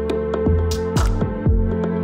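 Background electronic music with a steady beat of deep kick drums and crisp hits over sustained tones.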